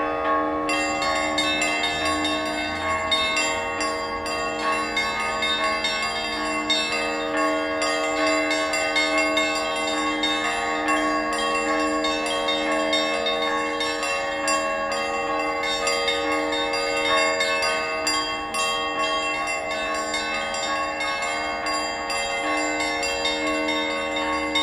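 Church bells ringing continuously, many strikes overlapping so the tones never die away between them.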